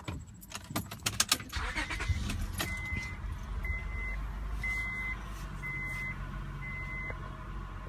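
Keys jangle and click in the ignition, then the 2002 Acura TL's 3.2-litre V6 starts about a second and a half in and settles into a cold idle, the state in which the owner hears a knock that quiets as it warms. A warning chime beeps five times, about once a second, over the idle.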